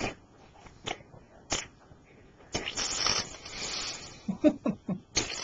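A person blowing a mouth-made fart noise, a raspberry lasting about a second and a half, followed by a few short vocal sounds. A few small clicks come before it.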